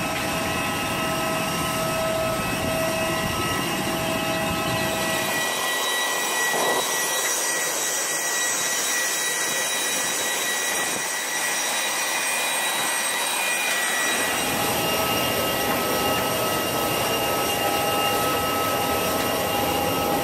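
Steady whine of jet airliner engines on an airport apron: a constant rush carrying several steady high tones. The low rumble drops away for several seconds in the middle.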